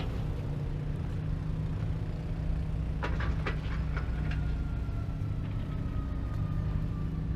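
Steady low engine hum, with a few sharp clicks about three seconds in and a faint whine from about four seconds in that slowly falls in pitch.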